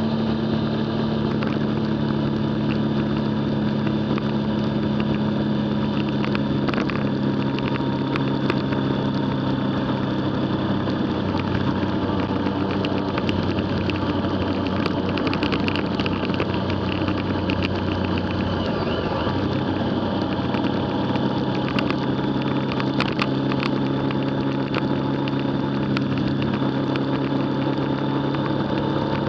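Motorcycle engine running steadily at cruising speed, its note shifting a little around the middle, over steady road and wind noise.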